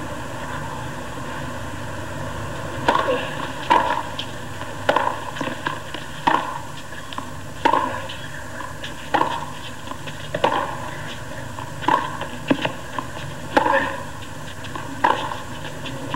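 Tennis rally: a ball struck back and forth by rackets, starting about three seconds in, with a dozen or so sharp hits about a second to a second and a half apart and bounces between them, over a steady hiss of crowd and broadcast noise.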